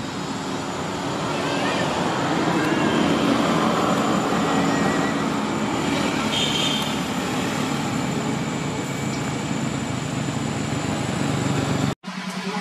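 Steady engine or traffic noise, with a few faint short high squeals. It cuts off abruptly near the end.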